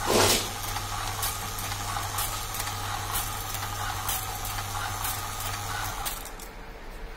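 Rotary automatic tape cutter/dispenser running: a steady motor hum with irregular sharp clicks about once a second, the hum stopping about six seconds in. A short loud rasp at the very start.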